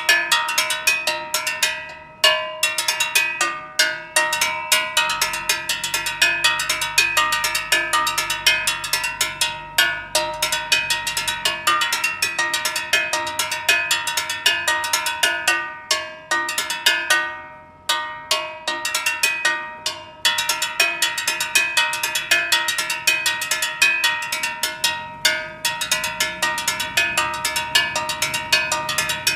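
Steel gas cylinder struck rapidly in a fast, repeating rhythm, each hit ringing like a bell: a gas vendor's signal announcing his delivery truck. The beating breaks off for about a second midway, and a low hum sits under it for a few seconds twice.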